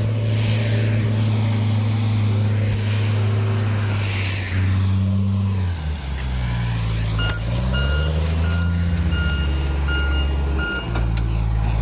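Heavy diesel truck engine running. Its note drops and wavers about halfway through and picks up again near the end. A reversing alarm beeps on and off for about three seconds in the second half.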